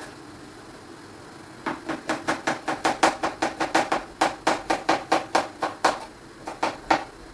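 Knife chopping fast on a cutting board: a quick even run of sharp knocks, about five a second, starting a couple of seconds in, then a few slower strokes before it stops.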